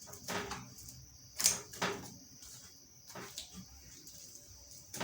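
Faint handling sounds at a fridge: a few light knocks and clicks, the loudest about a second and a half in, as food and containers are moved around.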